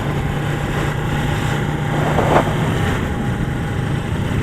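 The two-cylinder engine of a custom 1977 Suzuki GS400 motorcycle running steadily under way. There is a brief rush of noise about two seconds in.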